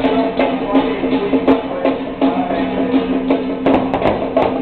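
Temple procession music: a steady held tone over drum and percussion strikes coming about three times a second.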